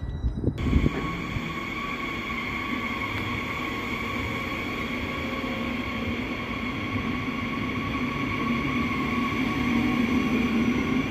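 Double-deck regional train moving along a station platform: steady running noise with an even, high whine, growing a little louder near the end. A few low thumps come in the first second.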